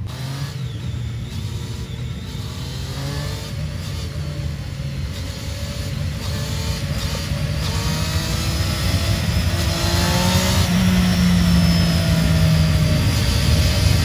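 Sportbike engine revving on a stunt rig. The revs climb in several rising waves and get louder, then hold at a steady high note for a couple of seconds near the end.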